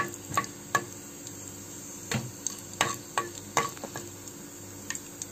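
Spatula stirring mustard seeds and cumin frying in hot oil in a kadai: irregular sharp clicks and taps of the spatula against the pan over a faint steady sizzle.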